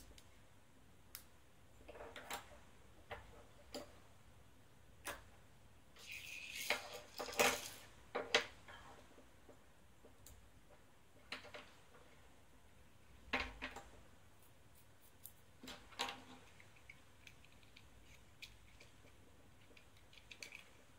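Small plastic mold parts being handled and fitted together: scattered light clicks and taps, busiest between about six and eight and a half seconds in.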